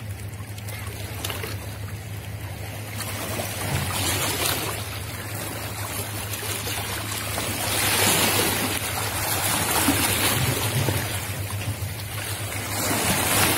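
Rushing noise of wind and water on open water, swelling about eight seconds in and again near the end, over a steady low hum.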